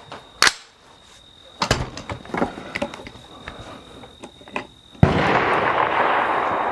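A few sharp metallic clicks and knocks as an AR-style rifle is loaded and readied on its bipod, then, about five seconds in, a single loud rifle shot with a long fading tail.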